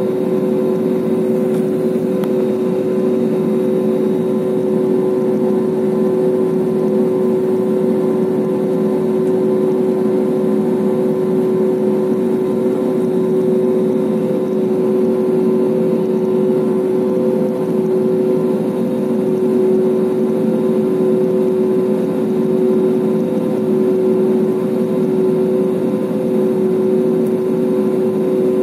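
Airliner's turbofan engine running steadily at low thrust while taxiing, heard from inside the cabin: an even rumble with two steady humming tones and no change in pitch.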